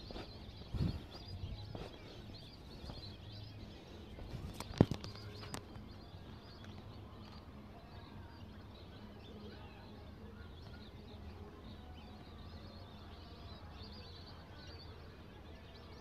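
Faint, scattered calls of a flock of migratory waterbirds over steady outdoor background noise, with a sharp knock just under five seconds in.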